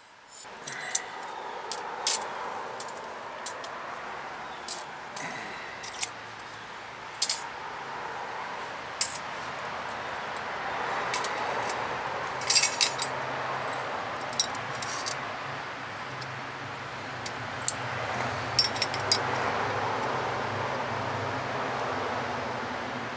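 Scattered sharp metallic clinks and clicks of hand tools and metal parts being handled, over a steady rushing background with a low hum that comes in about seven seconds in.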